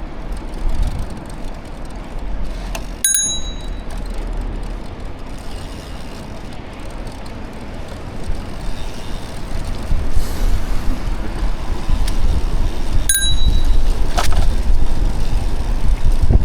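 A bicycle bell dings twice, about ten seconds apart, each a short bright ring. Under it runs a steady low rumble that grows louder in the second half.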